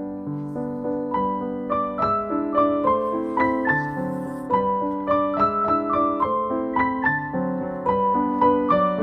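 Background piano music: a gentle melody of struck notes that quickens from about two seconds in.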